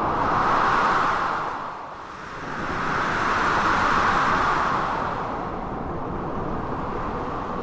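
Storm ambience of blizzard wind with sea waves crashing: a loud rushing noise that surges twice in the first five seconds, then settles to a steadier roar.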